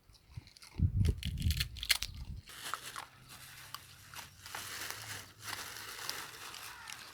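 A dog crunching and chewing food close by, in several loud bites from about one to two and a half seconds in, followed by fainter, steady crackling noise.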